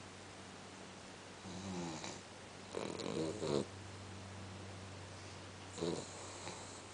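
Sleeping Cavalier King Charles spaniel snoring, three snores with short pauses between them, the middle one a double, over a low steady hum.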